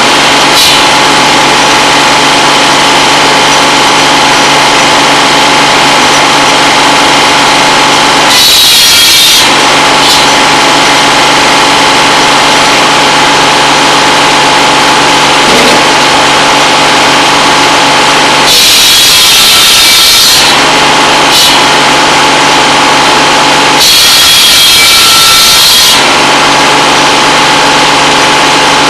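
Tractor-driven buzz saw (circular cordwood saw) running steadily with a humming whine, three times biting into a pole for a loud, rasping cut lasting one to two seconds: about 8 seconds in, about 19 seconds in and about 24 seconds in.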